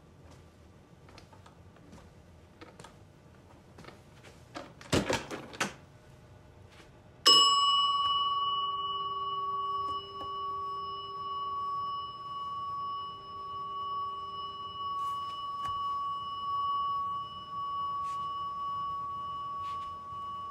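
Faint footsteps, then a few loud thumps about five seconds in. A small silver hotel desk bell is struck once about seven seconds in, and its clear, bright ring goes on and on, barely losing volume.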